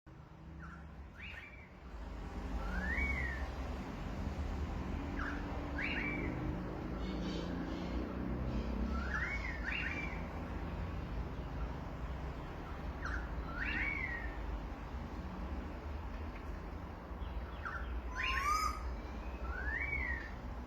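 Birds calling: short whistled notes that sweep upward, often in pairs, repeated every few seconds, over a steady low rumble.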